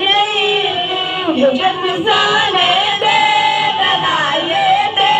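Boys' voices singing a naat, a devotional Islamic song in praise of the Prophet, into handheld microphones: long, sustained, ornamented melodic lines.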